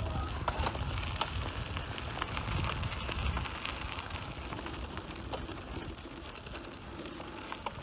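Bicycle freewheel ticking in short runs of fast clicks as the rider coasts, over the low rumble of tyres rolling on a gravel path.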